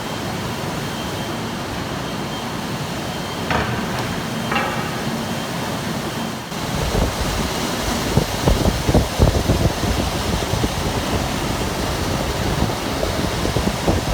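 Steady whirring machinery noise with a faint hum and a thin high whine, broken by two short knocks a second apart; about six and a half seconds in, it gives way to gusty rushing air.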